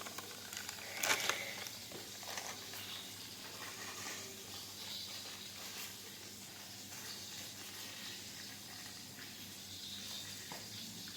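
A steady hiss, with one sharp clatter about a second in and a few lighter knocks soon after.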